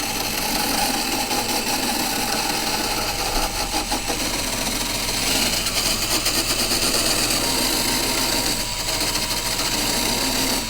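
Powered wire brush running steadily against a metal drive shaft, scouring off caked dirt, then cutting off suddenly.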